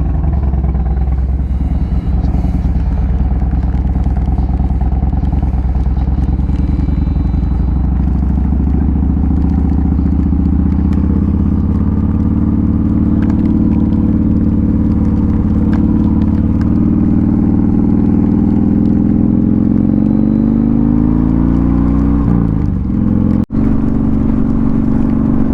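Motorcycle engine running while riding, its pitch climbing slowly as it speeds up, then dropping at a gear change near the end.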